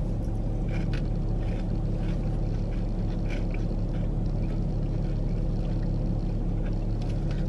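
Steady low hum of a car idling, heard inside the cabin, with a few faint short rustles and chewing sounds.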